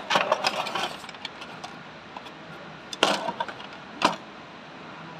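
Metal tools clinking and tapping on the steel parts of a dismantled truck starter motor: a quick run of clinks at the start, another short cluster about three seconds in, and a single sharper knock a second later.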